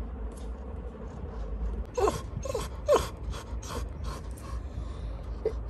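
Labrador retriever puppy whimpering: a few short, falling whines starting about two seconds in, with one more near the end. It is crying, which its owner takes for fear of something.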